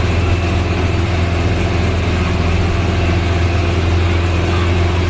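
Engine of the vehicle carrying the camera, running steadily with a deep hum as it moves slowly along the road, heard from on board.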